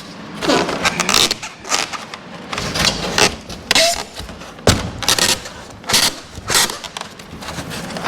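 Rigid foam insulation panel being handled and worked into a metal garage door section: rubbing and scraping of foam against the door, with a string of knocks and one sharp thump a little past halfway.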